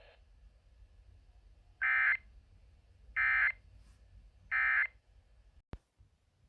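Emergency Alert System SAME end-of-message code: three short, buzzy digital data bursts about a second and a half apart, marking the end of the tornado warning. A sharp click follows near the end.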